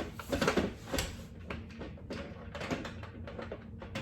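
Hard plastic toy parts being handled: a run of small clicks, knocks and rattles, busiest about half a second in.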